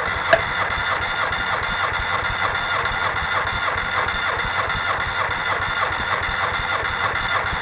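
Starter motor cranking a Nissan twin-cam 16-valve four-cylinder engine that spins over without firing, its spark plugs out and its ignition and injection disconnected. It makes a steady, rhythmic churn, with one sharp click just after it begins. This is a compression test on cylinder one, which builds to about 14.5 bar.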